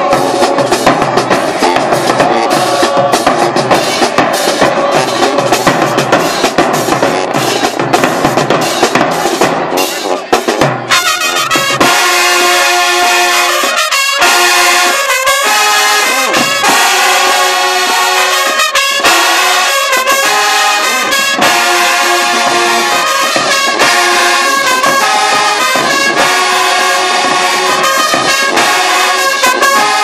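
High school marching band playing in the stands. For about the first ten seconds, drums and cymbals play a fast cadence. Then the full brass section (trumpets, trombones and sousaphones) comes in with loud, rhythmic hits over the drums.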